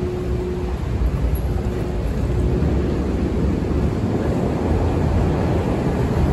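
Steady low rumble of subway station background noise, with a faint hum tone that drops in and out, growing slightly louder toward the end.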